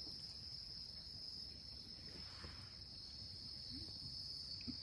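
A faint, steady, high-pitched insect chorus that runs on without a break.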